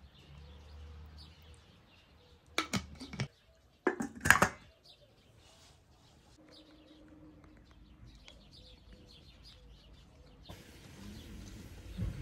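Small birds chirping in short high calls, with two loud, sudden noises about three and four seconds in. A steady hiss comes in near the end.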